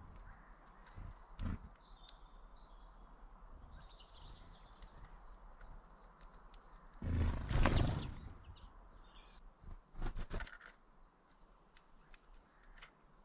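Small birds chirping faintly, with a loud rustle lasting about a second about seven seconds in, and a quick cluster of sharp taps around ten seconds.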